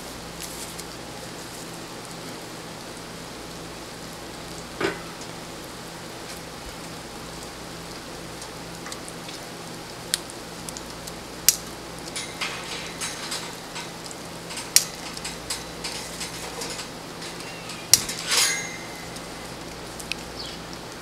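Sharp metallic clicks and clanks of a small portable tabletop grill being handled, its lid lifted and set down and the grate rattling, scattered through the second half over a steady hiss.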